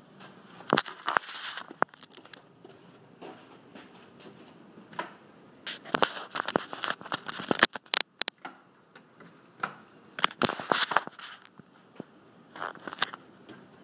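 Handling noise from a handheld camera being moved about: scattered crackling clicks and rubbing that come in clusters, the longest and loudest in the middle of the stretch.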